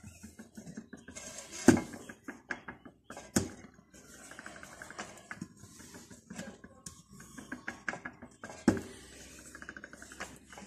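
Quiet background music with a few sharp percussive hits and bursts of fast ticking.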